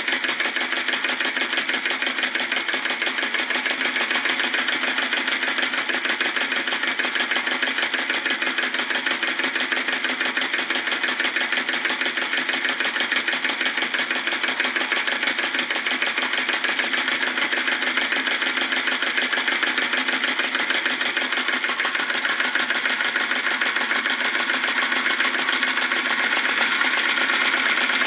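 Retrol VE-01 crossbeam flame-licker (vacuum) engine running fast, a rapid, even mechanical clatter, with its flame adjuster wound in so it picks up speed. It gets a little louder near the end.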